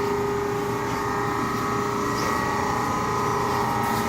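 Brown & Sharpe Micromaster 1236 surface grinder running: a steady machine hum with a few steady whining tones from its motor and drive.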